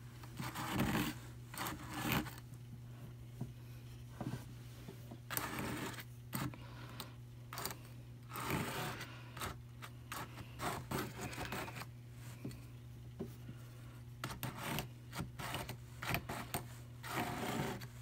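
Wool fiber being dragged through a drum carder's fine metal carding cloth with a pointed metal pick, in irregular scratching, rasping strokes about one a second.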